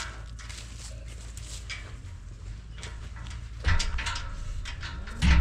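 Dairy heifers' hooves clattering in quick, uneven knocks as the herd runs back into the barn, with a loud low moo near the end.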